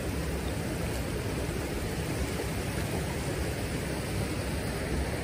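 Steady rush of a mountain stream running over rocks.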